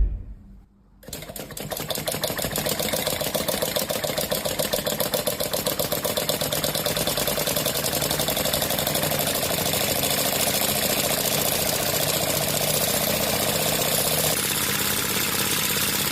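A small motor starts about a second in and runs steadily with a fast, even flutter. Its sound shifts slightly near the end.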